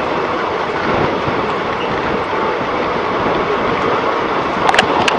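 Passenger train coach running at speed, heard from its open doorway: a steady rush of wheel-on-rail and wind noise. A few sharp clicks come near the end.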